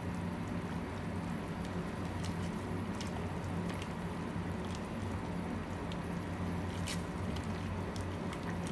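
Pot of noodle soup simmering on the stove over a steady low hum, with a few short clicks as tongs stir the noodles against the steel pot.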